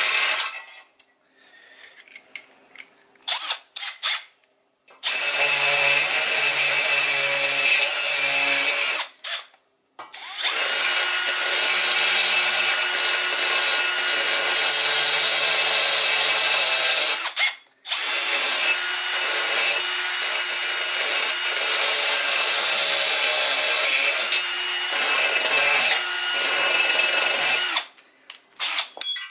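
Cordless Milwaukee M12 Fuel drill cutting into a cast aluminium valve cover boss to open up clearance, with a steady motor whine under the cutting noise. It starts with a few short bursts, then runs in three long stretches of several seconds each, stopping briefly between them.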